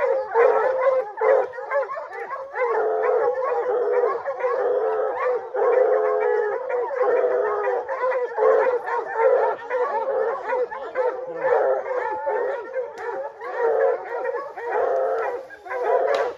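Several hunting hounds baying without a break at a black bear they have treed, their long bawling calls overlapping. It is the tree bay that tells the hunters the bear is up a tree.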